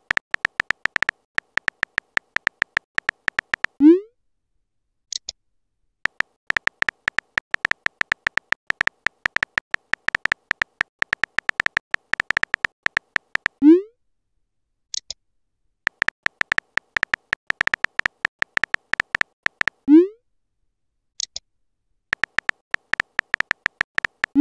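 Texting-app sound effects: runs of rapid keyboard-tap clicks as messages are typed, each run ended by a short upward swoosh as the message is sent, then a brief high blip as a reply comes in. This cycle repeats about three times, and a last swoosh comes at the very end.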